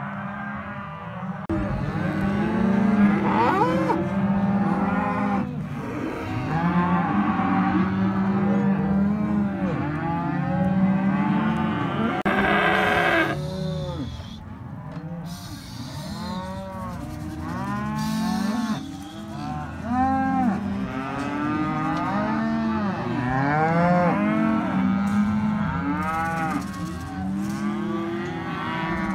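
A herd of cattle mooing and bawling without a break, many overlapping calls of differing pitch, with one louder, higher bawl about halfway through.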